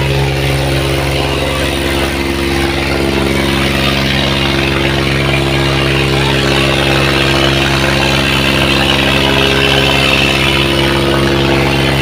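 Eicher 557 tractor's diesel engine running steadily, hitched to a heavy wooden load with chains, over the noise of a large crowd.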